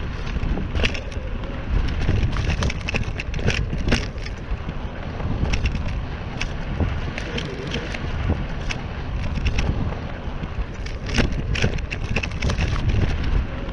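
Mountain bike riding over a rough dirt trail. Irregular crackles and knocks come from the tyres and the rattling bike over the bumps, over a steady low rumble of wind on the microphone.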